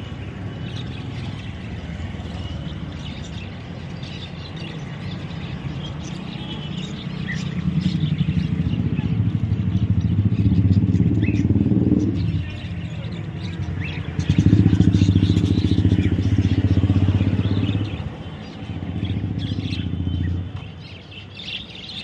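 Caged birds chirping in short, scattered calls, with the low, steady engine noise of vehicles passing on the road. The engine noise swells about a third of the way in, again past the middle, and briefly near the end, and is the loudest sound.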